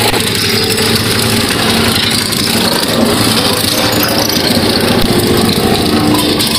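Case road roller's diesel engine running steadily, with a constant low hum.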